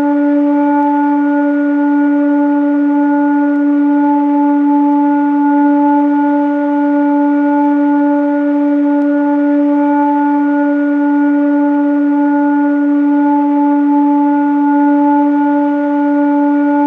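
Steady sound-healing frequency drone: one sustained tone with a stack of overtones above it, holding the same pitch without a break.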